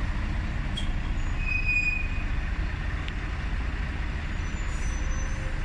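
Steady low rumble of outdoor street noise from distant road traffic, with a faint, brief high-pitched squeal about a second and a half in.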